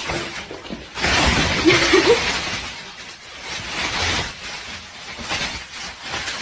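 A sudden loud crash about a second in, trailing off over the next second or so.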